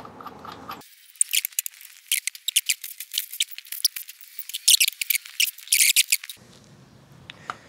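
Quick, thin clicking, scraping and rattling of loose metal engine parts being handled as the timing-belt cover is worked off a Subaru EJ engine, starting about a second in and stopping about a second before the end.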